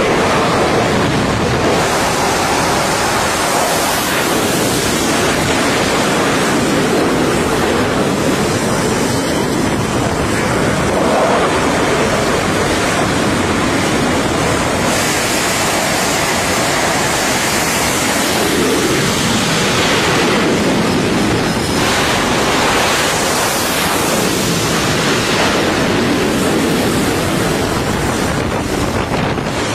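Loud, steady rushing roar of jet engines at high power on an aircraft carrier's flight deck, mixed with the hiss of catapult steam and wind on the microphone.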